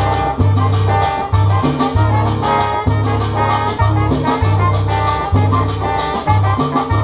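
Live salsa band playing an instrumental passage: a repeating bass line under percussion and a brass section.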